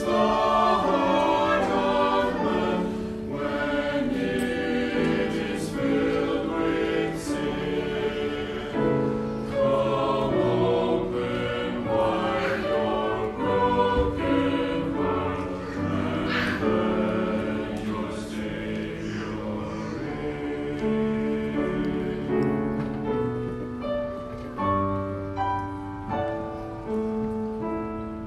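A family singing a hymn together, several voices in harmony.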